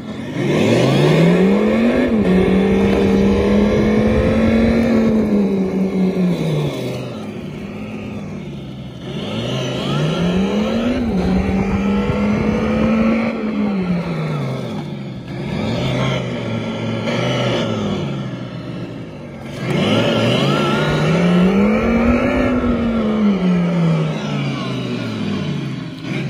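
Segway Ninebot GoKart Pro's sound-kit speaker playing a simulated engine sound that follows the throttle: the pitch rises as the kart accelerates, holds, then falls as it slows, three times with a shorter swell in between. It plays loud.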